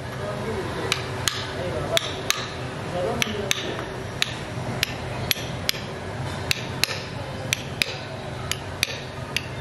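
Hammer striking a steel punch held against a Massey Ferguson tractor engine block. It gives light, sharp metallic taps about two a second, often in close pairs, starting about a second in.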